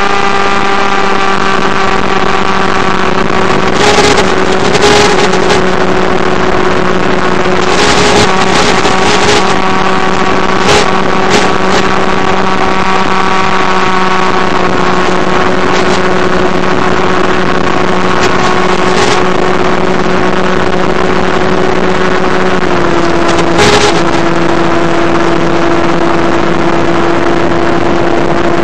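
Electric motor and propeller of a Skywalker FPV plane running at steady cruise throttle, a steady pitched drone heard over the plane's 5.8 GHz video link; the pitch eases slightly lower late on. Short bursts of radio static crackle through it several times where the video signal breaks up close to the receiver.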